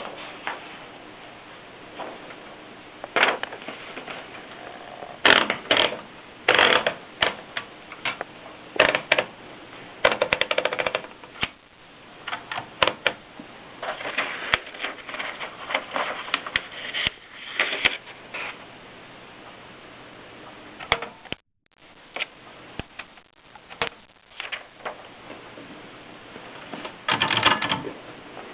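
1950s Olympia typewriter being worked by hand: irregular clicks and clacks from its keys and carriage mechanism, some single and some in short quick clusters.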